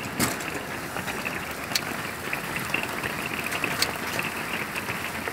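Hail and rain hitting the roof: a dense, steady patter with scattered sharper ticks, twice standing out clearly.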